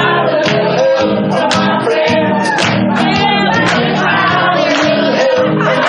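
Music with several voices singing together.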